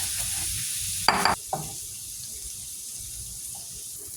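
Kitchen tap running steadily, with a sharp clank about a second in.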